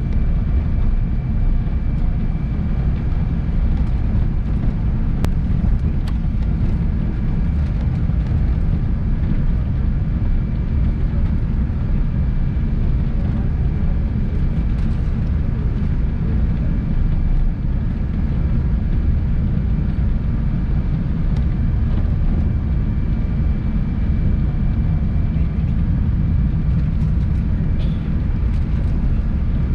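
Cabin noise inside a Boeing 777-300 taxiing at walking-to-jogging pace: the jet engines at taxi power as a steady low rumble, with a faint steady high whine.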